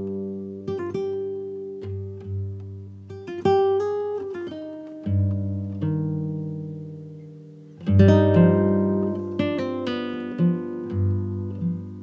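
Background music on a plucked acoustic guitar, picking notes and chords that each ring out and fade.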